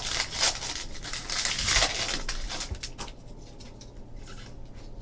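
Rustling and crinkling of trading cards and a foil card-pack wrapper being handled, strongest in the first three seconds and then quieter.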